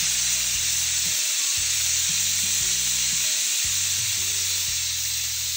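Pressure cooker whistling: a loud, steady hiss of steam jetting out from under the lifted weight valve, the sign that the cooker has reached full pressure.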